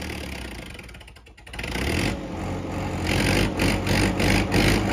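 Diesel tractor engine running while pulling a trolley loaded with sugarcane. It grows louder about a second and a half in, and a regular clatter of about four strokes a second joins in the later part.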